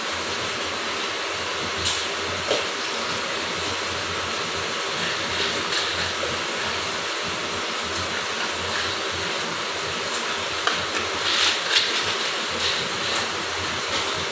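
Steady rushing noise with scattered light knocks and clinks from kitchen work, the knocks clustering near the end.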